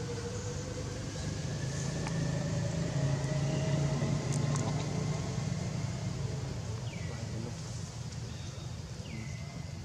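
A motor vehicle's engine running steadily, a low hum that swells about halfway through and then eases off, with a faint tone rising slowly in pitch. Two short falling chirps come near the end.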